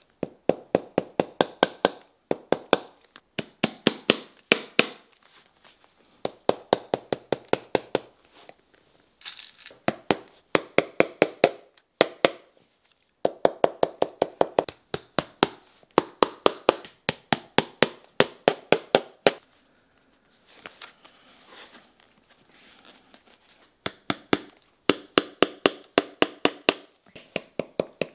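Shoemaker's steel hammer tapping a leather boot upper held on the last, in quick runs of sharp taps about five a second with short pauses between runs, as the upper is hammered down during lasting.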